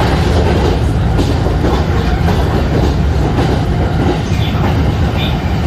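Electric train running, a loud, steady low rumble with wheel clatter on the rails.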